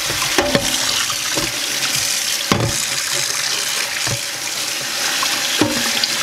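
Kitchen tap running into a stainless steel sink while a rusty cast iron pot is scrubbed by hand under the stream, the rust being scoured off. A few sharp knocks come through the running water.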